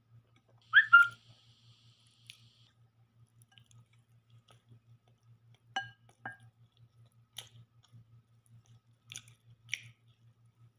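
Chewing and mouth smacks of a person eating, with soft clicks as fingers work food in a glass bowl. There is a brief louder mouth sound about a second in and short sharp clicks around six and nine seconds in, over a steady low hum.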